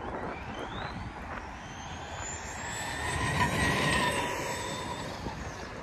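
Arrma Big Rock v2 4x4 RC monster truck on a 20T pinion and 3S LiPo, its BLX brushless motor whining on a flat-out speed run, rising in pitch over the first two seconds as it accelerates. It grows louder to a peak about three and a half seconds in, then eases off.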